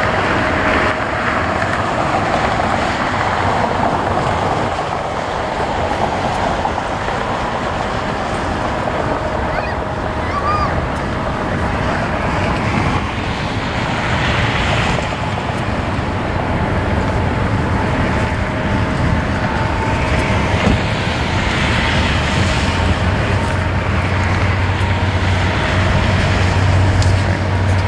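Boeing 777 freighter's GE90 jet engines running at takeoff thrust on the takeoff roll, heard from afar as a steady rushing roar mixed with wind on the microphone. A low hum grows stronger in the last few seconds.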